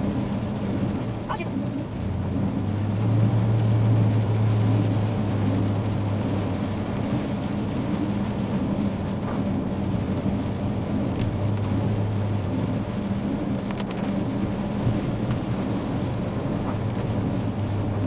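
Truck driving on a wet road heard from inside the cab: a steady low engine drone that swells a few seconds in and again midway, over tyre and road noise, with rain on the windshield.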